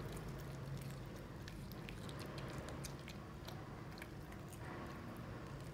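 Toy poodle chewing a piece of strawberry: soft, irregular clicks of its teeth and wet mouth noises.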